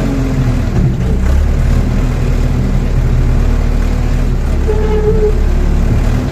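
Rondon backhoe loader's diesel engine running steadily, a deep low drone, with a brief higher steady tone about five seconds in.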